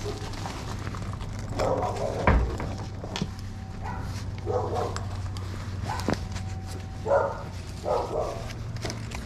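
A dog barking, about five separate barks spaced a second or two apart, with a sharp knock about two seconds in.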